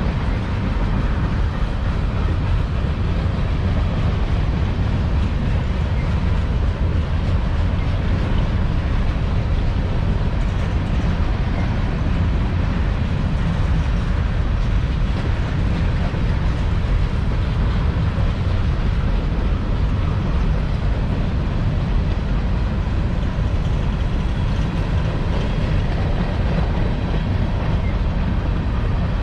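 Freight train rolling past on the rails: a steady, loud noise of wheels on track that does not change.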